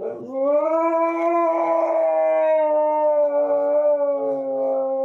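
A dog howling: one long howl that rises quickly at the start, then holds, sinking slightly in pitch.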